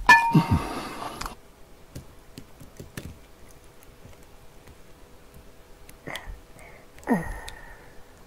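A ceramic bowl knocks and rings briefly as it is picked up, then thick sweet-and-sour sauce is poured from it over a plate of battered fried pork, with faint ticks and two short falling-pitched sounds near the end.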